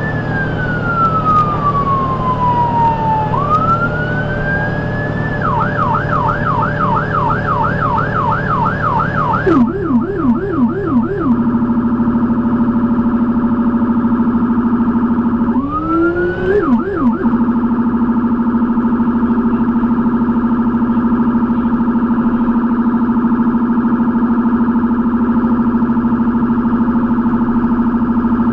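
Ambulance electronic siren heard from inside the cab: a slow rising and falling wail, switching about five seconds in to a fast yelp of about four sweeps a second. From about eleven seconds in it changes to a steady held tone, broken once by a short rising yelp burst.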